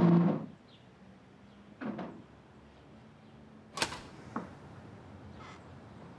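A drum-heavy music sting fades out in the first half second. Then come a soft knock about two seconds in, and a sharp click with a lighter one after it about four seconds in, as a wooden café chair and things on a table are handled.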